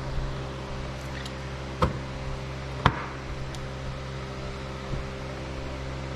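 Sharp knocks of metal parts and tools while the stator cover is fitted onto a motorcycle engine case: two about two and three seconds in, and a lighter one near five seconds. A steady mechanical hum runs underneath.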